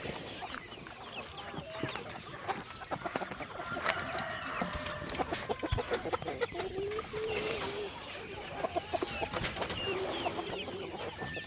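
A flock of chickens clucking, with many short calls and a few longer held calls.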